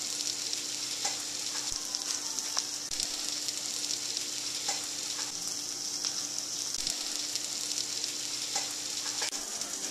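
Alaskan salmon burger patty sizzling steadily in a nonstick frying pan, with a few small pops and a faint steady hum underneath.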